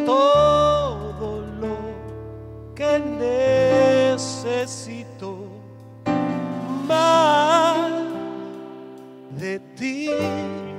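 Worship song: a singer holds long notes, some with vibrato, in several phrases over sustained instrumental chords.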